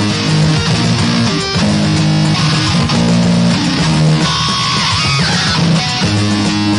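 Loud music led by guitar, with strummed or sustained chords changing every second or so over a low bass line.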